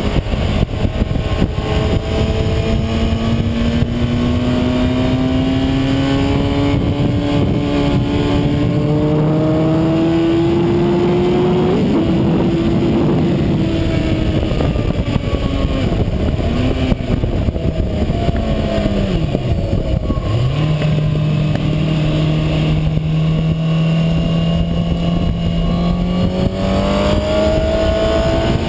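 Sport motorcycle engine revving hard on track, its pitch climbing through the gears, dropping at each shift and falling away sharply about two-thirds through before climbing again. Heavy wind rush from riding at speed lies under it.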